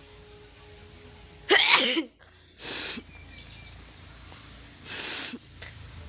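Three forceful bursts of air blown out hard through the nose, each about half a second long: the first about one and a half seconds in, the second a second later, the third near five seconds.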